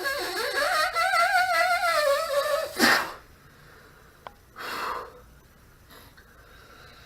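Someone straining to blow up a long twisting balloon by mouth. A wavering high tone rises and falls for the first few seconds, then comes a hard rush of breath just under three seconds in and another puff about two seconds later, with a small click between them.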